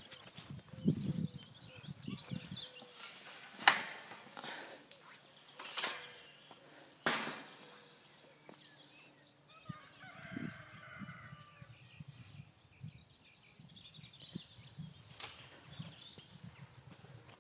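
Footsteps through grass, with several sharp knocks, the loudest about four seconds in. Faint bird calls come in around ten seconds in.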